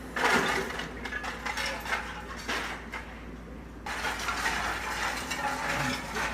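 Demolition rubble crashing and clattering as a machine tears down a house: a loud crash just after the start, then a run of cracking and rattling debris, with the machine's engine running faintly underneath.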